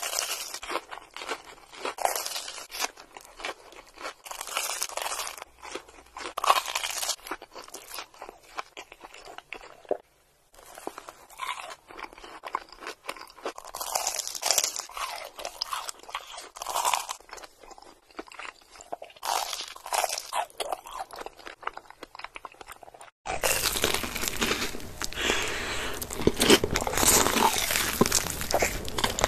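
Close-miked crunching and chewing of crumb-coated corn dogs, with bites and chews in irregular bursts. About 23 seconds in, it cuts to a louder, denser stretch of chewing on a cheese-filled corn dog.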